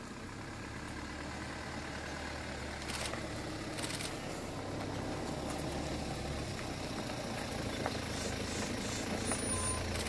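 Vehicle engine idling with a steady low hum under a general rumble, and a brief thin high whistle near the end.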